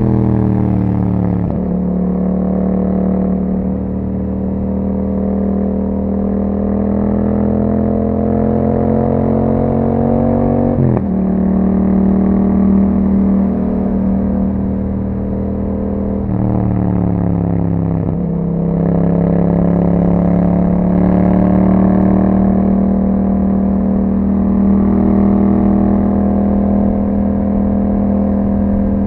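Yamaha MT-07 689 cc parallel-twin engine through an Akrapovic exhaust with a dB killer, pulling through the gears on the road: the pitch climbs slowly and drops sharply at gear changes about two, eleven and eighteen seconds in, then holds nearly steady.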